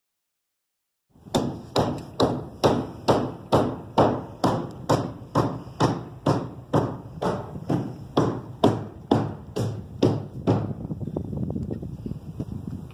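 Hammer driving nails into wood framing: a steady run of sharp blows, a little over two a second, that stops about ten seconds in.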